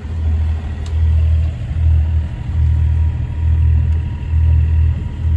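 Wind buffeting a microphone aboard a sailing yacht under way: a low rumble that swells and fades about once a second.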